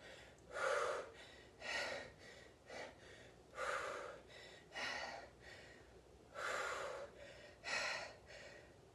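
A woman breathing hard after high-intensity cardio: short, heavy breaths close to the microphone, roughly one a second, as she catches her breath.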